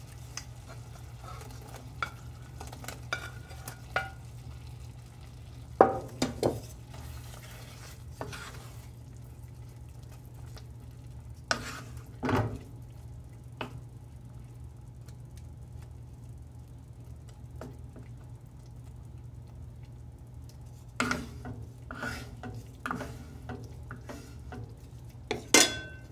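Sliced chicken going into a simmering tomato cream sauce in a stainless-steel pan and being stirred with a wooden spatula: wet stirring with scattered knocks and scrapes of the spatula against the pan, in clusters about six seconds in, about twelve seconds in and over the last five seconds. A steady low hum runs underneath.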